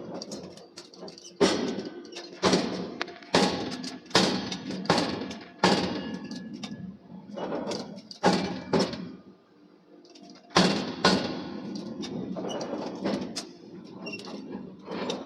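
A run of irregular heavy knocks and clanks, about one or two a second with a short pause midway, typical of steel being struck and handled at a forge.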